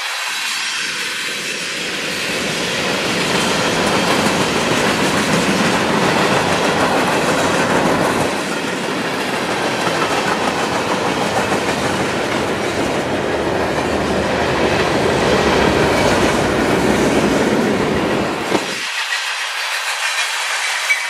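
Freight cars of a CSX mixed freight train (covered hoppers, tank cars, boxcars) rolling past close by: steady noise of steel wheels running on the rails. The deep part of the noise drops away abruptly near the end.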